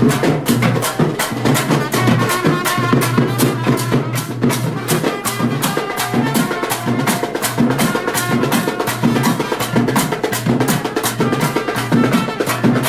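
Papare band music: fast, steady drumming and clacking percussion under a brass melody.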